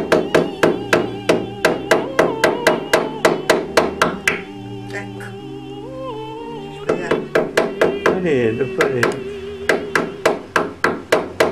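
Small hammer tapping nails into a board, quick even blows about three or four a second, stopping for about two seconds midway and then going on. Background music with a singing voice runs underneath.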